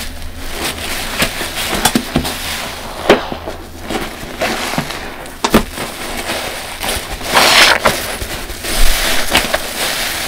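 Large soft sponges soaked in dish-soap foam being squeezed by hand: wet squelching and crackling of foam, with sharp irregular pops and a longer rush of squelching about seven seconds in.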